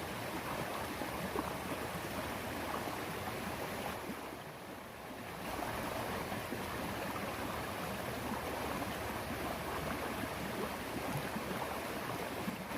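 Steady rush of river water flowing over rocks, dipping briefly a little past the middle.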